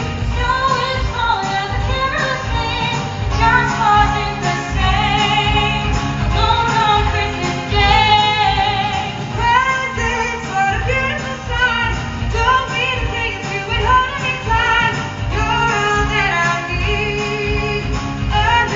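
Live female vocals sung with vibrato over backing music, amplified through a theatre's sound system.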